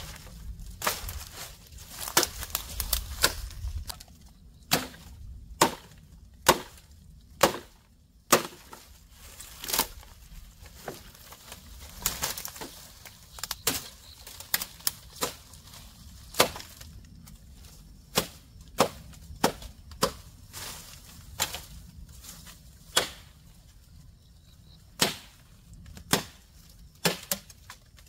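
Wood being chopped by hand with a blade: sharp single blows at an uneven pace, roughly one a second, with short pauses between runs.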